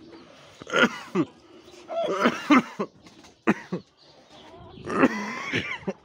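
A man gagging and retching in about four bouts of throat-clearing dry heaves, set off by the stench of a rotting poisoned rat.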